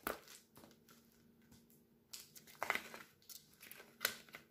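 Diamond painting canvas being handled, rustling in a few short bursts as it is turned over and laid flat.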